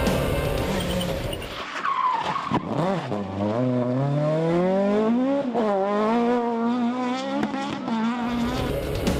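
Rally car engine accelerating hard away from a bend, revs climbing, falling once at a gear change about halfway through, then climbing and holding. Background music plays at the start and comes back near the end.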